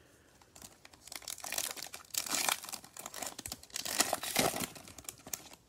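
Foil Topps Chrome trading-card pack crinkling as it is handled and torn open, an irregular crackle that peaks twice, about two and four seconds in.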